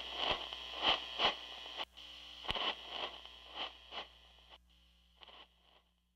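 Irregular crackly, scraping pulses over a low hum, about two a second, fading away to silence near the end: the closing sounds of the song recording.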